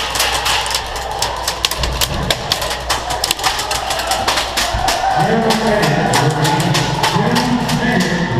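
Airsoft guns firing, many sharp irregular clicking shots. From about halfway, a voice calls out over the shots.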